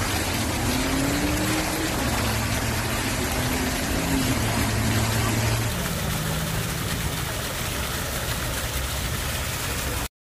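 Fountain jets splashing steadily into a pool, a dense hiss of falling water, with a low engine hum underneath in the first half. About six seconds in, the splashing changes to that of another fountain, and the sound cuts off just before the end.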